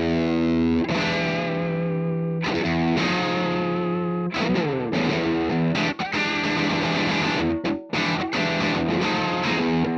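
Spear electric guitar with a hologram finish played through distortion and chorus effects, ringing out held chords and notes with vibrato, with a sliding change of pitch about four seconds in.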